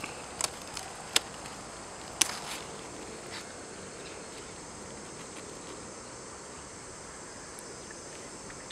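Steady high-pitched insect chorus throughout. Over it, a few sharp snips in the first couple of seconds: scissors cutting the stem of a kabocha squash on the vine.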